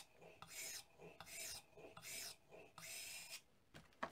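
Plane blade held in a Veritas Mk II honing guide being drawn back over a wet 8000-grit water stone: a gritty scraping pull repeated about every three-quarters of a second, five strokes in all. A few sharp spray-bottle clicks right at the end.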